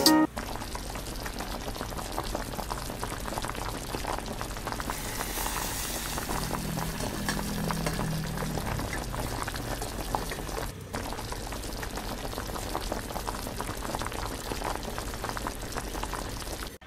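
Water boiling hard in a stainless steel pot with a glass lid: a steady, dense bubbling, broken once briefly about eleven seconds in.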